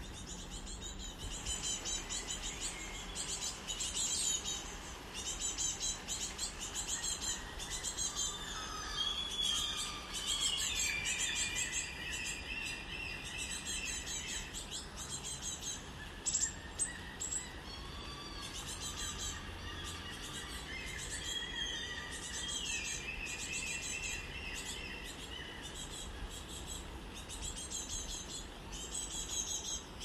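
Several small birds chirping and whistling throughout, with a few slurred whistles among rapid twittering, and a few sharp clicks about halfway through.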